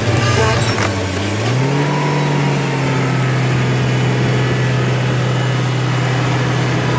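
An engine running, its speed rising about a second and a half in and then holding steady at the higher speed.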